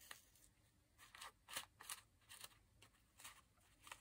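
Faint, short rustling swishes, several in a row about every half second, of cotton thread being drawn through a paper tag during hand stitching.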